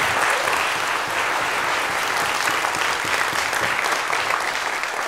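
Lecture-hall audience applauding steadily, many hands clapping at once, easing off a little near the end.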